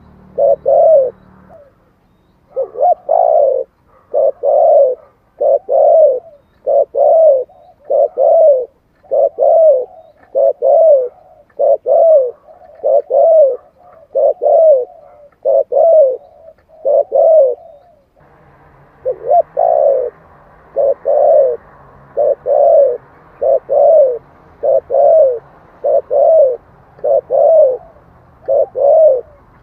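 Spotted dove cooing: a long run of short, repeated coos, about one a second, with a short break about two seconds in. It is a decoy dove's call of the kind played to draw wild doves in.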